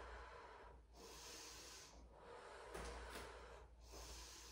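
Faint breathing of a person holding a yoga lunge, heard as soft airy breaths about one a second.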